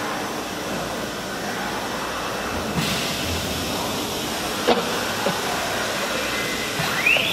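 Large wood CNC router (2040 model) running: a steady machine hiss whose high end steps up suddenly about three seconds in, with a couple of sharp clicks around five seconds.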